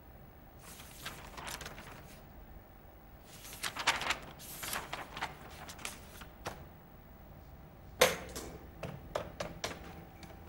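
Light clicks and rustles of small objects being handled, in several short clusters, with one sharp click about eight seconds in followed by a run of quick clicks.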